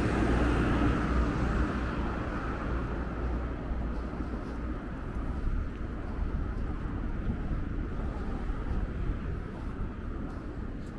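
City street traffic noise. A vehicle's rumble fades away over the first couple of seconds, then a steady low hum of passing traffic continues.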